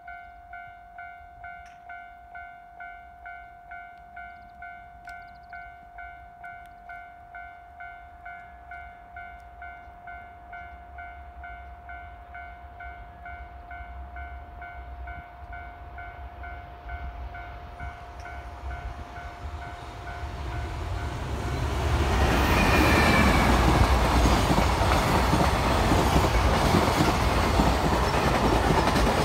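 A level-crossing warning bell rings about twice a second. After about twenty seconds it is drowned by the rising, then loud, steady rumble of a JR Freight EF210 electric locomotive and its container wagons passing close by on the rails.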